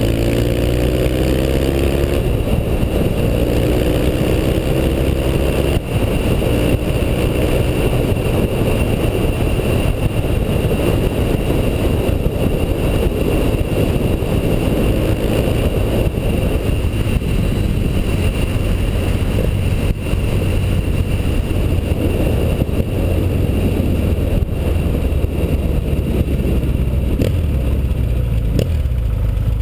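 1981 Yamaha XS650's parallel-twin engine pulling as the motorcycle accelerates, its pitch rising over the first few seconds, then holding a steady cruise under heavy wind rush on the helmet-mounted microphone. Near the end the wind noise drops as the bike slows.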